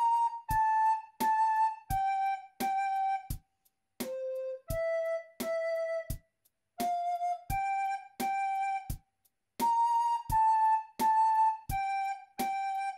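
Wooden recorder played solo: a slow melody of separate, tongued notes about half a second each, falling and rising in steps, with short pauses between phrases.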